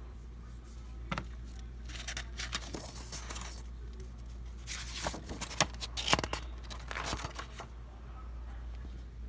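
Paper pages of a spiral-bound journal being handled and turned: several short rustles and scrapes of paper.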